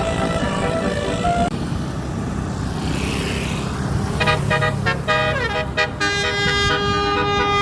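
Bus 'telolet' musical air horn playing a tune of held multi-tone notes over a running bus engine. It plays in the first second and a half, drops out, then comes back about four seconds in with notes sliding down in pitch before settling into steady chords that step between pitches.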